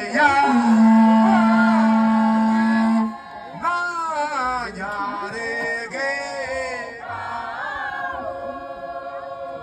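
A group of voices chanting a traditional ceremonial song. It opens with a long, steady low note held for about three seconds, then goes on in wavering, overlapping chanted phrases.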